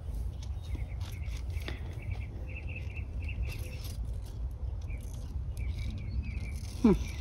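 Kalanchoe stems being snipped and handled during pruning: scattered short clicks and leaf rustles. A faint repeated chirping and a steady low rumble run underneath.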